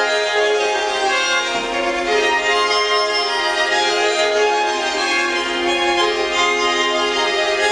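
String quartet music: several bowed strings holding overlapping chords with a steady, dense texture.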